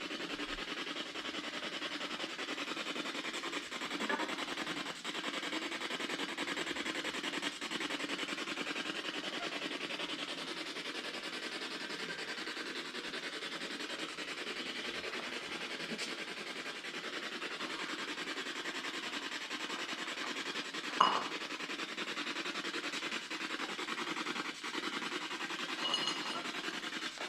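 Steady background hiss of a quiet room, with a brief pitched sound about 21 seconds in.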